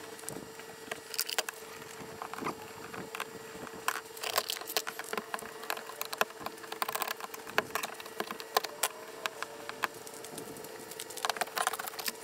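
Screwdriver clicking and scraping against screws and old painted wood on a wooden boat's deck, in irregular short clicks and scrapes.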